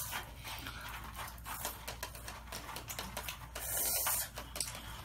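Crunchy spicy snacks, Flamin' Hot Cheetos and Takis, being chewed, with snack bags crinkling as hands dig into them. A dense crackle of short crunches and rustles, louder for a moment about four seconds in.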